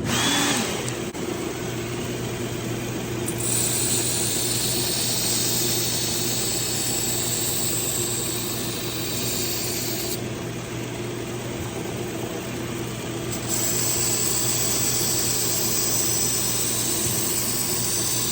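Work Sharp Ken Onion Edition belt sharpener with its grinding attachment running steadily on a 120-grit belt. A knife blade is ground against the belt in two passes, the grinding hiss coming in about three seconds in, stopping about ten seconds in and starting again a few seconds later.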